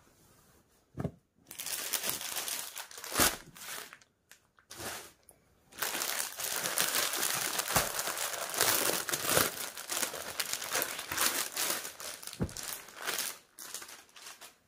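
Clear plastic packaging crinkling and rustling as a packed suit is handled and opened, in two long stretches with a short lull between, and a few soft knocks.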